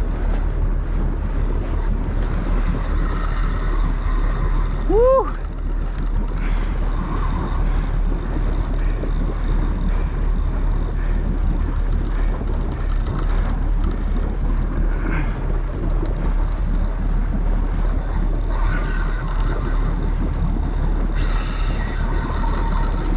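Steady low rumble of the boat's engine mixed with wind on the microphone. About five seconds in there is one short, loud rising whistle, and there are patches of higher hiss near the end.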